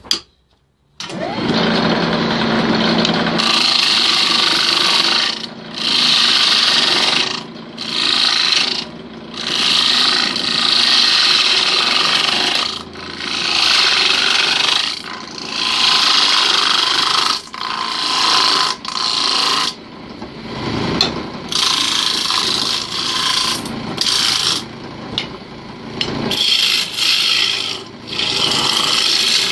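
Hand-held turning tool cutting the face of a spinning wooden disc on a wood lathe: a loud hissing scrape that swells and fades with each pass of the tool. It starts after a brief gap about a second in.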